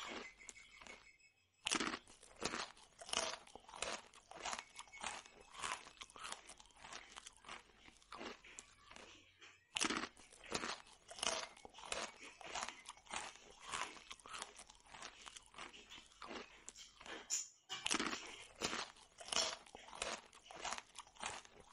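Person chewing and crunching fried puri bread, a quick run of crisp crunches broken by a few short pauses.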